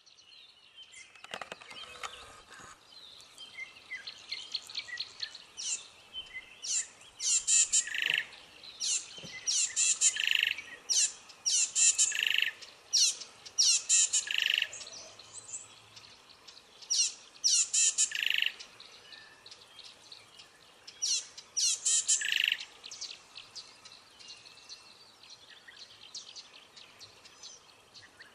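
Birds calling: loud bursts of rapid, high-pitched chirps every second or two, over quieter chirping.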